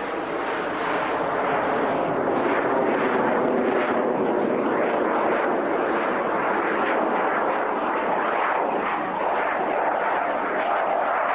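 Steady, loud jet noise from a de Havilland Sea Vixen's twin Rolls-Royce Avon turbojets as it flies a display pass.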